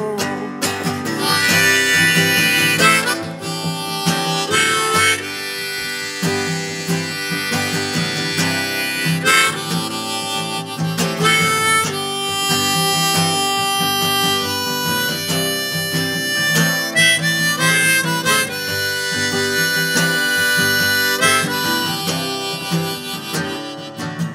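Harmonica playing a solo of sustained, bending notes over strummed acoustic guitar, an instrumental break in a folk song.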